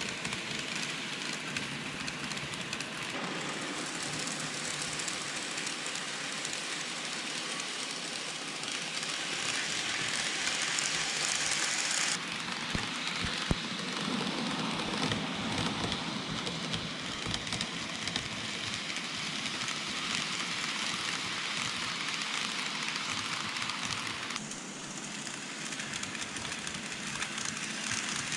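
N-gauge model electric trains running on layout track: a steady fine rattle and whir of small wheels on rail and the motor. The noise changes abruptly about 3, 12 and 24 seconds in, and there is one sharp click about 13 seconds in.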